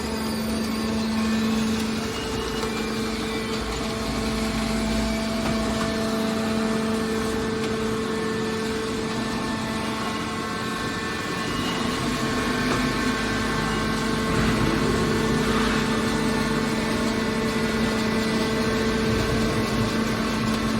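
A steady engine running, with a constant hum.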